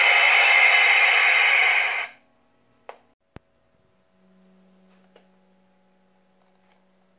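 Steady loud steam hiss from the sound system of an MTH O-gauge Pennsylvania Railroad E6 steam locomotive, cutting off abruptly about two seconds in as the engine is shut off. Then two sharp clicks and a faint low hum.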